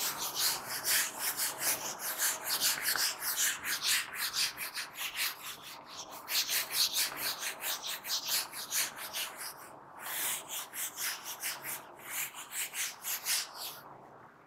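Whiteboard duster wiped back and forth across a whiteboard in quick scrubbing strokes, several a second, with short pauses about six and ten seconds in; it stops just before the end.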